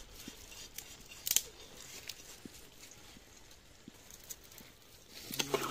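Metal spatula clicking and scraping against a large metal karahi as sugar is worked into grated carrots for gajar ka halwa. The sharpest clink comes about a second in, with lighter taps scattered through.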